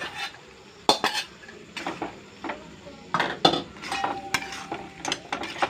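Metal pot and spatula clinking, knocking and scraping against a metal kadai as boiled papaya cubes are tipped in and stirred into the masala. The clinks come irregularly, several close together in the middle.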